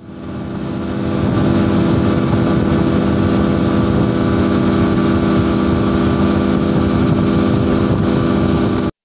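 Outboard motor of a motorboat running steadily at speed, a loud, even drone with the rush of water. It fades in over the first second and cuts off abruptly near the end.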